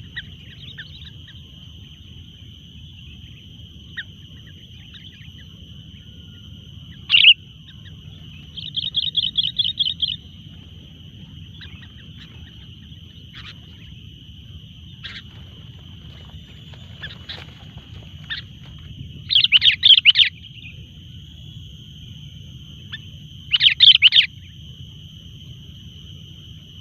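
Sooty-headed bulbuls calling in several separate bursts of bubbly notes, one of them a rapid chattering run, over a steady high-pitched drone.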